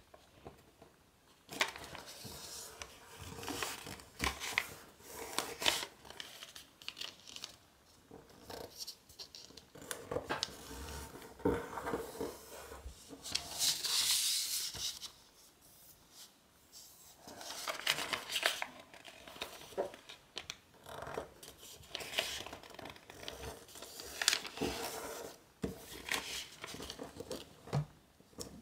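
Sheet of origami paper being folded and creased by hand on a tabletop: irregular rustles, paper sliding on itself and fingers pressing along the folds, with one longer swish about halfway through. It is the pre-creasing stage of the fold.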